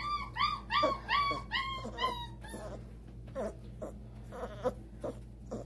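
A puppy almost five weeks old whimpering in a quick run of high, arched cries, about three a second, each dipping a little lower. The cries stop about halfway through, leaving only faint clicks and rustles.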